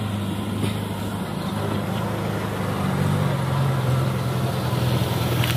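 Old Willys jeep engine running as the jeep drives toward the listener on a dirt track, growing a little louder, with the engine note rising about halfway through.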